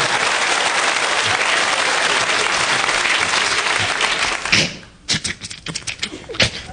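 Studio audience applauding. The applause is dense, then dies away about four and a half seconds in to a few scattered claps.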